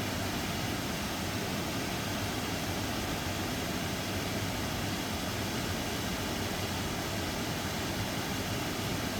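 Waterfall and cascading creek water rushing steadily, an even noise with no breaks.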